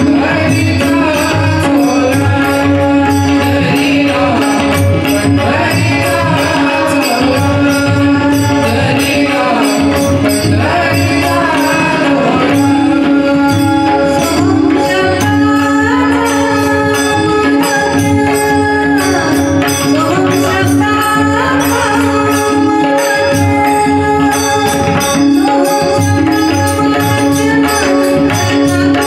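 Marathi devotional abhang sung by women's voices, over a steady tanpura and harmonium drone, with small hand cymbals and a tabla-style hand drum keeping a regular beat.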